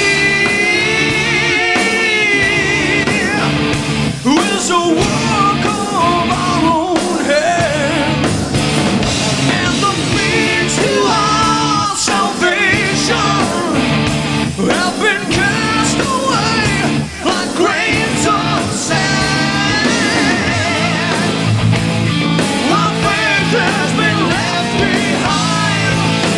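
Hard rock band playing live: a male singer's voice with wavering held notes over electric guitars, bass and a steady drum beat.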